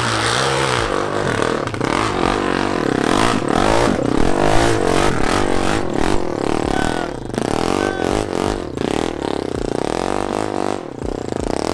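Off-road vehicle engine revving up and down, with clattering and scraping from rough, loose ground.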